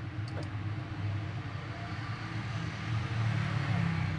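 Steady low background hum, with a faint click or two near the start.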